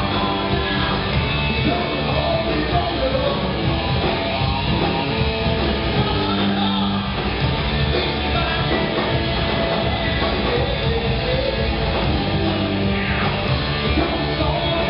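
Live rock band playing loud and steady: electric guitar, drum kit and a singer.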